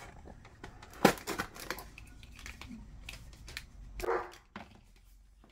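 A blade cutting heat-shrink tubing against a cardboard box: one sharp click about a second in, then lighter clicks and scraping.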